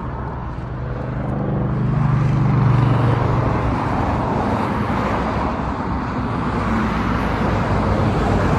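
Road traffic: a motor vehicle passes, its engine hum swelling to its loudest about two to three seconds in, over steady tyre and engine noise from the highway.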